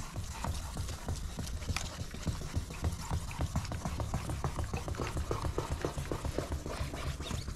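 Wet sanding of a plastic car headlight lens by hand with 1500-grit waterproof sandpaper: quick, even up-and-down strokes, each a short wet scratch, several a second.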